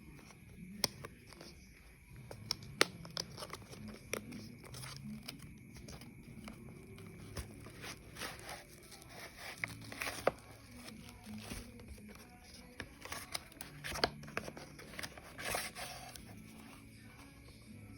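Packaging of a Casio FX-991EX calculator being opened and handled: plastic and paper tearing and crinkling, with irregular sharp clicks and taps.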